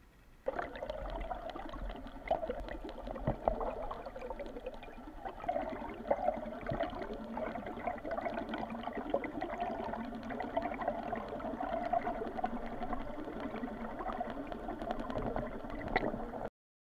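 Water gurgling and rushing around a camera held just under the surface, with scattered small knocks. It starts suddenly about half a second in and cuts off abruptly near the end.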